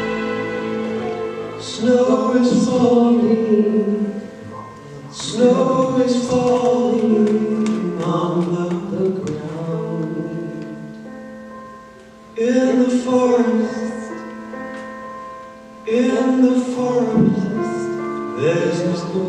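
A slow song: voices singing over sustained instrumental chords, in several phrases, with a quieter stretch about ten to twelve seconds in.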